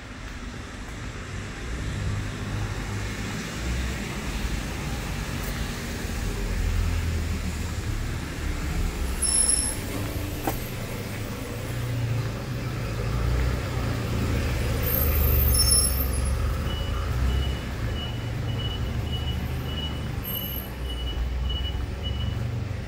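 Street traffic: vehicle engines rumble past, swelling and easing, with brief high squeaks. Near the end a steady electronic beep repeats about twice a second.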